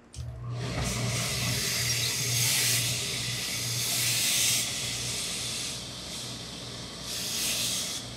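Hose-fed steam iron hissing as it presses wool trousers, the steam surging louder about two and a half, four and seven and a half seconds in, over a steady low hum.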